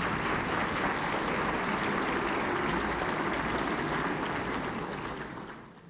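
Audience applauding in a hall, a dense patter of many hands clapping that dies away near the end.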